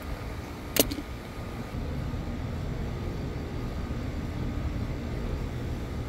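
Steady low outdoor rumble with one sharp click about a second in, from hand tools being handled while working on conduit wiring.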